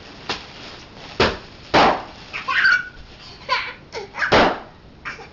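Bubble wrap being popped: several sharp pops, the loudest about a second in and near the end, with a toddler babbling and laughing between them.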